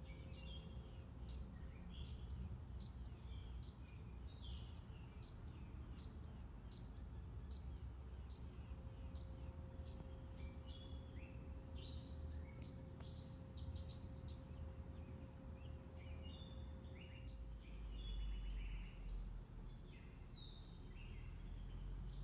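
Eastern chipmunk giving its repeated sharp 'chip' call, about two a second, bunching into a quick flurry around the middle and then stopping. Birds twitter faintly behind it over a low outdoor rumble.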